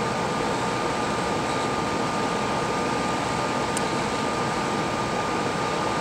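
Hot air rework station blowing steadily through its nozzle onto the board: an even hiss with a thin steady whine. It is heating the solder to free the damaged touch digitizer FPC connector.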